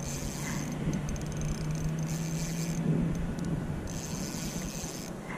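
A spinning reel being cranked in short spells, a high whirring with fine rapid clicks, as a hooked trout is reeled in. A steady low hum runs underneath.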